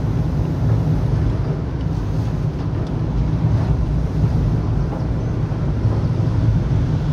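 Steady low rumble of a vehicle driving along, engine and road noise.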